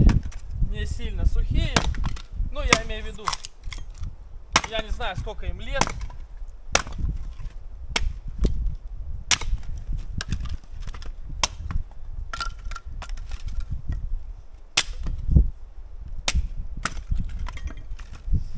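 Axe splitting firewood rounds: a run of sharp wooden cracks and knocks at irregular intervals, roughly one a second.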